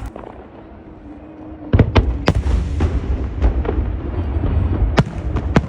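Fireworks going off in a rapid volley: after a quieter second and a half comes a dense run of sharp bangs over a deep rumble. The loudest cracks come just under two seconds in and again near the end.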